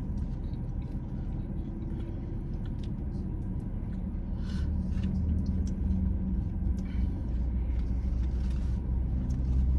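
Steady low rumble of a car's engine heard from inside the cabin, with a few faint soft clicks of someone chewing food.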